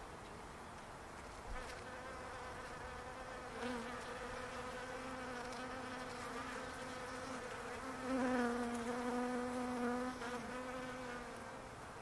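Bees buzzing as they forage in a blossoming palo verde tree: a steady hum of many bees, with one buzzing close by from about a third of the way in. The close buzz is loudest about two thirds in and fades away shortly before the end.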